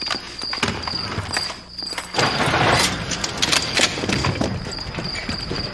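Crickets chirping in a steady pulsing rhythm over a low hum, with scattered clicks and knocks. A rush of noise comes in about two seconds in.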